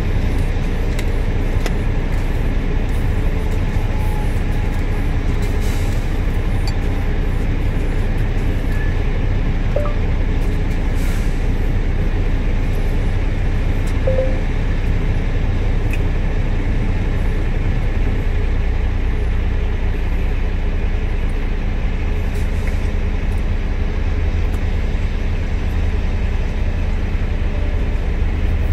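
Steady low hum of a truck engine idling, heard from inside the truck's cab, with a few faint clicks.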